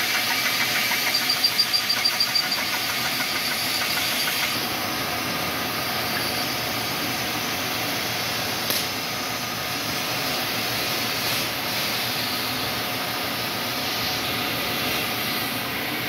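A drill press runs with its twist bit boring into a brake caliper's worn slide-pin hole, metal on metal. It chatters for the first few seconds, then cuts steadily. The hole is being opened up to take a bush, because the pin has gone loose in its worn bore.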